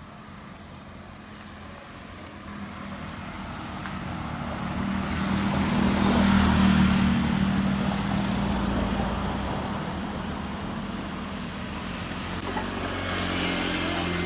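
Motor vehicle engine and road noise: a steady engine hum under tyre and road noise that swells to a peak about six or seven seconds in, fades, then rises a little again near the end.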